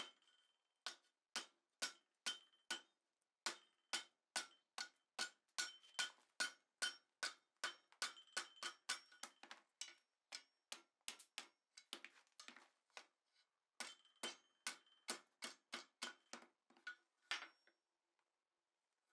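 Hand hammer striking a red-hot steel bar on the anvil horn while a scroll is turned. The blows come fast, about two and a half a second, each with a short metallic ring. They pause briefly twice and stop shortly before the end.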